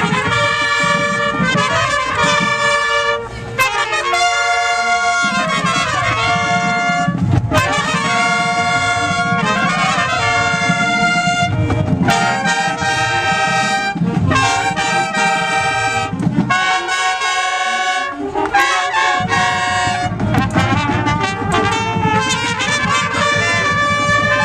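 High school marching band playing, with trumpets and trombones carrying the melody in held notes over drums.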